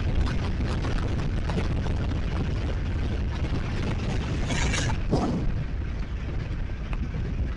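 Wind buffeting the microphone of a camera on a moving scooter, a heavy low rumble with the scooter's running and road noise underneath. A short hiss rises over it about four and a half seconds in.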